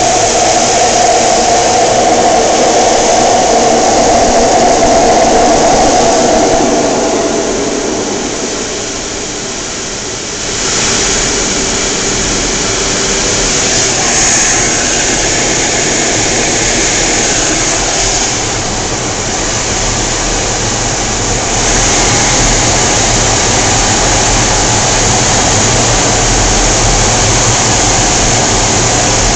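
Steady jet engine and airflow noise inside the cockpit of a Blue Angels F/A-18 Hornet in flight. The noise dips for a few seconds about a third of the way in, then comes back up.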